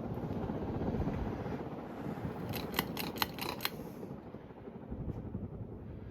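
Early-1980s Commander Kingston ceiling fan running with a steady rush of motor and air noise. About two and a half seconds in comes a quick run of about six sharp clicks, after which the higher part of the noise fades.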